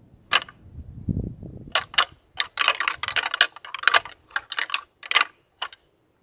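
A pair of deer antlers rattled together by hand: a single clack, then a quick, irregular run of hard clacks and clatter as the tines knock and grind against each other, ending in one last click. This is deer rattling, imitating two bucks sparring to pull bedded bucks in.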